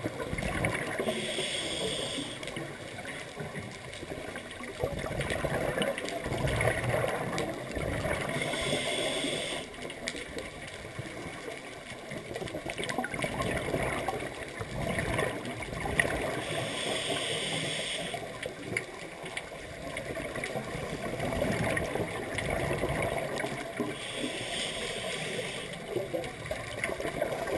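A scuba diver breathing through a regulator underwater: four slow breaths, each a hissing inhale followed by a long bubbling exhale.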